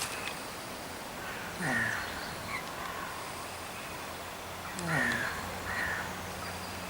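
A sleeping pig snoring: two snores about three seconds apart, each falling in pitch.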